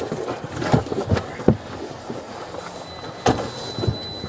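Scattered knocks and rustling as officers handle a restrained person's feet on a patrol car's rear seat, the sharpest knock about three seconds in. A faint, thin, steady high tone starts a little over halfway through.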